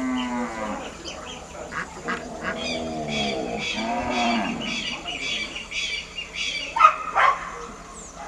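Flock of domestic ducks quacking, with a run of short repeated calls, about two or three a second, through the middle. Two louder sharp sounds come a little before the end.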